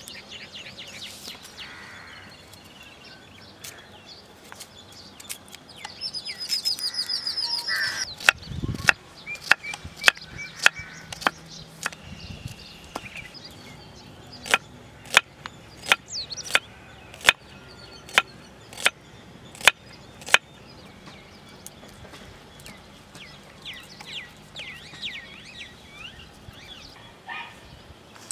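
A large kitchen knife chopping red onion on a thick wooden cutting board: a run of sharp, evenly paced knocks, a little faster than one a second, starting about eight seconds in and stopping about twenty seconds in. Birds chirp in the background.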